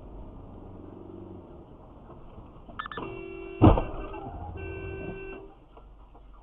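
Car collision heard from inside a car: a single loud crash about three and a half seconds in, over low road noise. A steady pitched tone sounds just before the crash and again for about a second after it.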